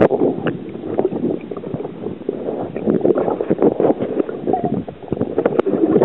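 River water sloshing and gurgling around a camera microphone dipped under the surface by a swimmer, with a dense run of small knocks and bubbly clicks.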